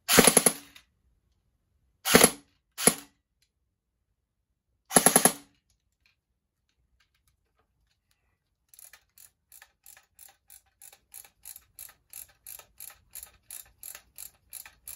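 AEG airsoft rifle firing on full auto: a short burst at the start, two very brief bursts about two seconds in and another around five seconds in, each a rapid rattle of the electric gearbox cycling. From about nine seconds in comes a quieter run of even ratcheting clicks, about three a second, as the high-capacity magazine's wheel is wound up to push the BBs into the feed; the short, broken bursts point to the magazine not feeding with its wheel let down.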